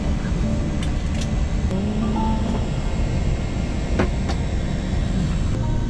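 Steady low rumble of an airliner cabin parked at the gate, with a few light clicks and knocks, under quiet background music.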